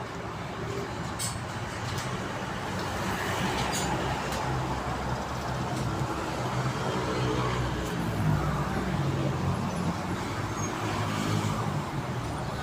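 A motor vehicle engine running steadily, its low hum growing somewhat louder through the middle, with a few light clicks near the start.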